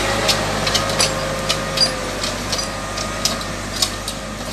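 Massey Ferguson 3065 tractor's diesel engine running steadily while it drives a forestry winch, with irregular sharp clicks over the top.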